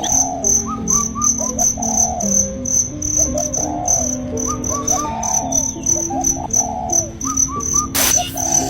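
Crickets chirping in a steady high, pulsing trill, with short bird-like chirps repeating in little groups of three, over soft background music of held low notes. A brief sharp click comes near the end.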